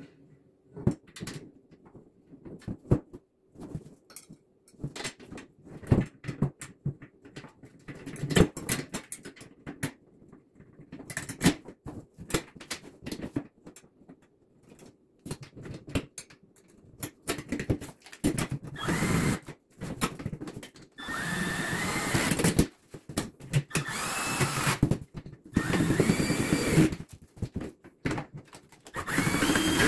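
Clicks and knocks of steel parts and screws being handled. In the second half, a cordless drill drives screws into the steel panel in about five short runs, each one rising and falling in pitch as the trigger is squeezed and let go.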